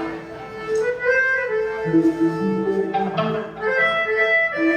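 Melodica playing a series of held, reedy notes that change pitch, being sound-checked.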